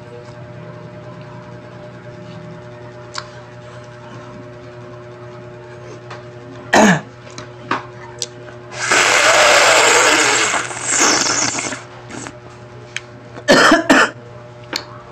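Slurping through a straw from a small plastic drink bottle: a few short sharp slurps, one long loud slurp of about three seconds in the middle, and two more quick slurps near the end, over a steady low hum.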